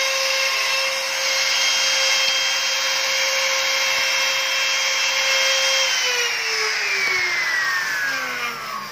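CNC router spindle running with a steady high whine over a hiss. About six seconds in it shuts off and the whine falls steadily in pitch as the spindle spins down at the end of the engraving job.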